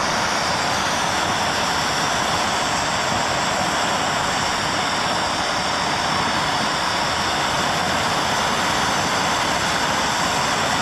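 A handheld gas torch burning with a steady, even roar while it heats a driveshaft U-joint yoke to melt out the plastic plugs that retain the U-joint.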